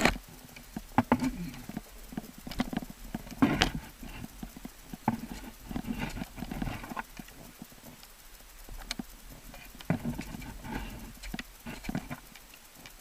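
Ice axes and crampons striking the ice in irregular knocks, roughly one every second or so, as a climber works up a frozen icefall, with rustling of clothing close by.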